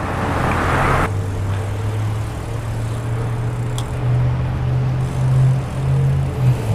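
Road traffic: a car engine's low hum that rises and falls in pitch.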